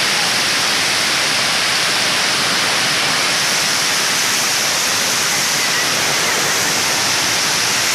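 Heavy monsoon rain and running water, a loud steady rush with no breaks.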